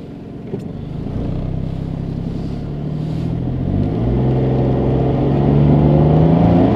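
Suzuki Alto Turbo RS's 660 cc turbocharged three-cylinder engine, heard from inside the cabin, pulling away from a stop: it grows louder and rises in pitch, drops at a gear change about four seconds in, then rises again. A single click sounds about half a second in.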